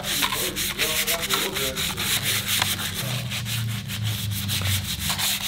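Hand sanding with a sanding pad on the painted metal housing of an outboard motor's lower unit: a fast run of scraping back-and-forth strokes, taking the old paint down before a repaint.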